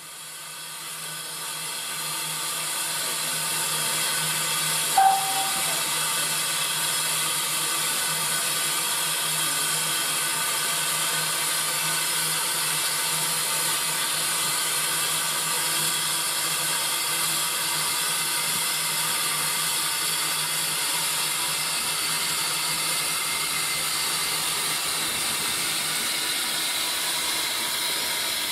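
Small saddle-tank steam locomotive 1340 Trojan giving off a steady hiss of steam that swells in over the first few seconds. One short, sharp tone sounds about five seconds in.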